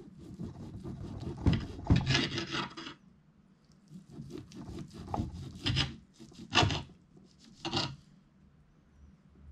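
A knife sawing back and forth through a rare-cooked beef steak, with rasping strokes. There is a quick run of strokes over the first few seconds, then separate strokes about a second apart.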